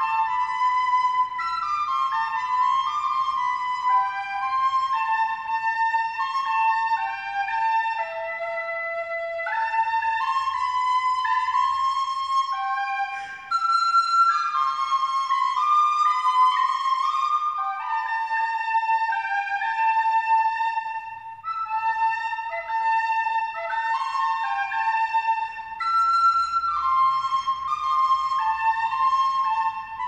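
A flute-like wind instrument playing a slow solo melody of held notes that move up and down in small steps. There is a brief break about thirteen seconds in.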